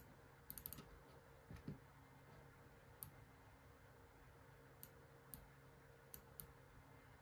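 Computer mouse clicking over near-silent room tone: a quick run of three clicks about half a second in, then single scattered clicks.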